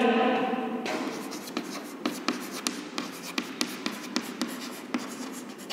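Chalk writing on a blackboard: a run of quick scratches and taps as a line of words is written out.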